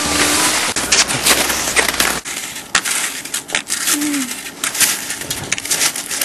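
Cross-country skis and poles crunching and scraping on hard, cold snow, with an irregular run of clicks and crackles.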